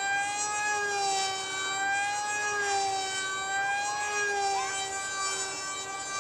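Small electric RC plane's 24 g 3000 kV Turnigy brushless motor and 5043 propeller whining steadily in flight overhead, the pitch wavering gently up and down.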